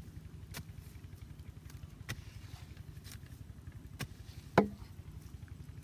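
Hoe blade chopping into damp soil, four separate strikes, the loudest near the end with a short dull ring after it, over a steady low rumble.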